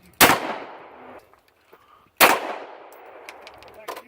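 Glock 9mm pistol fired twice, about two seconds apart, each sharp shot trailing off in an echo; a fainter crack follows near the end.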